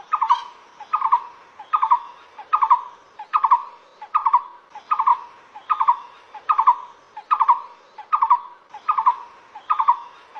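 Blue-throated barbet calling: a rhythmic call of three or four quick notes, repeated evenly about every 0.8 seconds.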